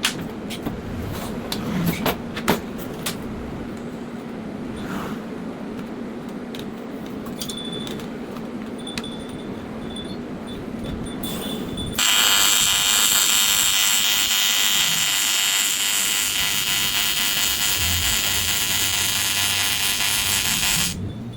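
AC TIG welding arc on aluminium, a loud, even buzz that starts suddenly about twelve seconds in and cuts off near the end. Before the arc strikes there is a steady low hum with a few sharp clicks.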